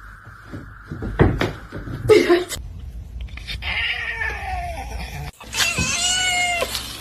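A cat gives one long meow about a second long, held level and then dropping slightly at the end, in the second half. Before it come a few short knocks and scuffles.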